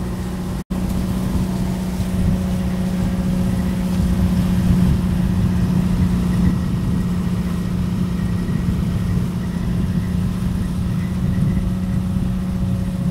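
The engine of a motorized bamboo-outrigger boat (bangka) running steadily at cruising speed, a constant droning hum over a low rumble. The sound cuts out for an instant near the start.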